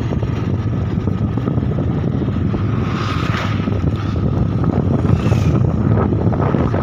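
Motorcycle riding along a road, its engine running under a steady rumble of wind buffeting the microphone.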